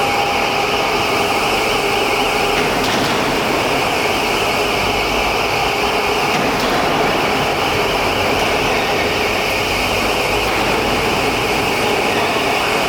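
CNC router for making doors running: a loud, steady machine noise with a constant whine through it.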